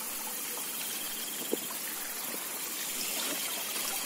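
Insects trilling in repeated high bursts over a steady hiss of trickling water from a paddy-side ditch, with one light tap about a second and a half in.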